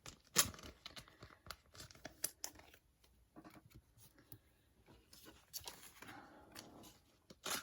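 Trading cards and their plastic and paper packaging being handled on a table: scattered clicks and rustling, a sharp tick about half a second in and a longer rustle near the end.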